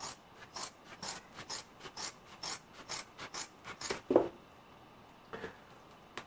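Large fabric scissors snipping through thick felt in steady strokes, about two a second, with a louder knock about four seconds in and then a few separate snips.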